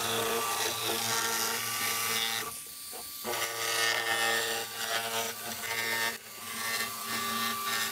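Handheld jigsaw cutting through 18 mm spruce plywood, its motor running steadily with the blade rasping through the wood. It stops briefly about a third of the way in, then resumes.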